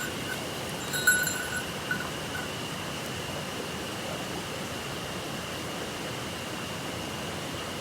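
Steady rushing of a small mountain stream, with a brief high-pitched chirp about a second in.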